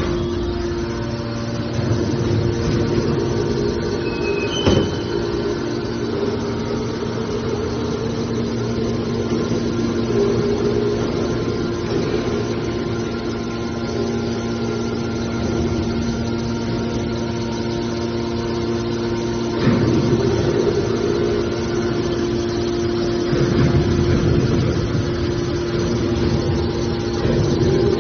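Hydraulic metal wire baler running: a steady hum from its pump motor, with a sharp knock about five seconds in and heavier surges of working noise twice later on.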